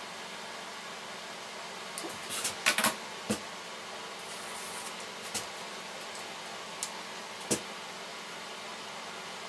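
A few light clicks and taps of small hand tools being handled, a quick cluster of them about two to three seconds in and a few single ones later, over a steady even hiss.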